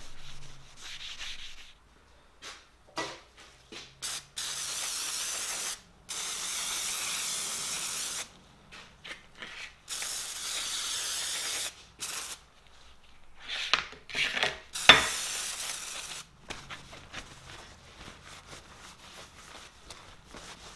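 An abrasive pad scrubbing a metal bar briefly, then four bursts of spray from an aerosol can of cleaner, each a steady hiss of one to two seconds that starts and stops sharply, with a few knocks as the bars are handled on a plastic tray.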